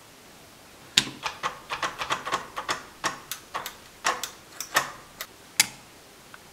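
Irregular light plastic clicks and taps from handling a mini sewing machine and pushing its DC power and foot-pedal plugs into their sockets, with a sharper single click near the end.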